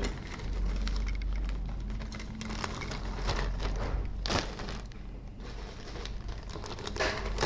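Rustling and light clicking of plastic model-kit parts and their bags being handled, a few separate crinkles and clicks over a low steady rumble.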